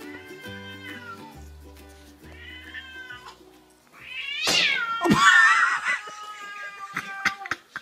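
Background music with meow-like notes. About four seconds in the music drops away and a cat gives a loud, drawn-out yowl lasting about three seconds.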